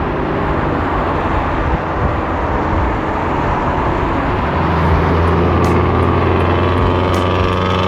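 Car driving: loud, steady engine and road noise, with the engine's low note holding steadier from about halfway through.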